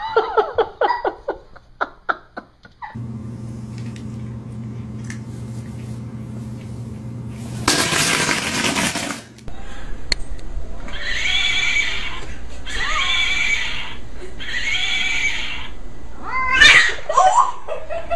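A cat yowling three times in a row, each drawn-out call lasting about a second. It follows a stretch of steady low hum that is broken by a brief loud burst of noise.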